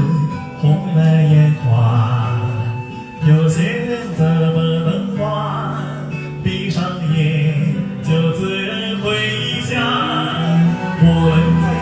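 Karaoke singing over a backing track, the vocal dry with the karaoke effects switched off.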